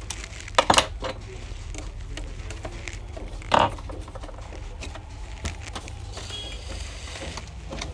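Small clicks and taps of plastic and metal as connectors and ribbon cables are unplugged inside an opened HP G4 laptop while its motherboard is taken out. There are two sharp clicks close together about half a second in and another about three and a half seconds in, with faint ticks between them over a steady low hum.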